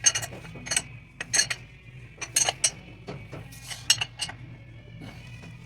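Palette knife scraping squeezed-out CT1 sealant off the welded base of a power hammer: a string of short, irregular metallic scrapes and clinks, some with a faint ring.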